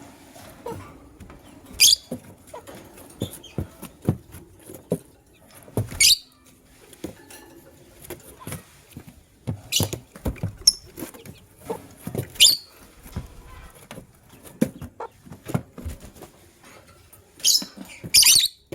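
Lovebirds giving short, sharp high-pitched chirps every few seconds, two in quick succession near the end, among many light clicks and taps.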